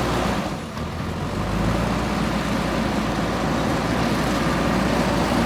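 JCB 3DX backhoe loader's diesel engine running steadily at work, briefly quieter about half a second in.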